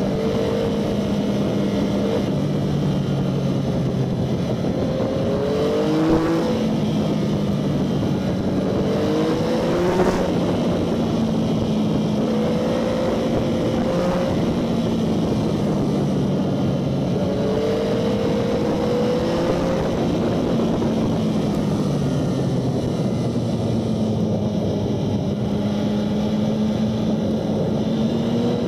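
Motorcycle engine running under way, its pitch stepping and gliding up and down with throttle and gear changes, over a steady rush of wind on the microphone. Two brief knocks stand out, about six and ten seconds in.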